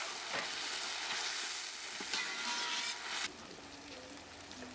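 Onion and tomato frying in hot oil in a pan, sizzling steadily while a spatula stirs and scrapes. The sizzle cuts off abruptly about three seconds in.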